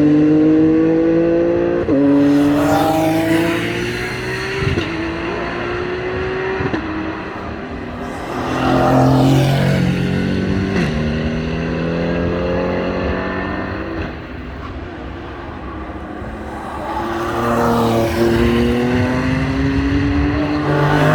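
GT3 race cars passing one after another at racing speed. Their engines rise in pitch under acceleration, with sharp drops at each upshift. Several cars overlap, and each swells loudly as it goes by, about four times.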